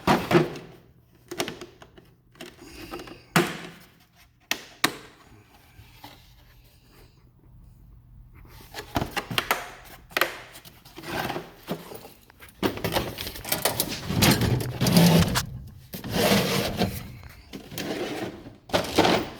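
Tools and their cases being handled in a toolbox drawer: scattered sharp knocks and clacks, then a longer stretch of rattling and clattering in the second half.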